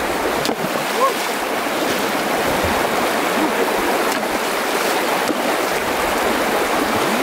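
Shallow stream rushing over rocks in a steady, loud rush of water, with a few faint short knocks or splashes.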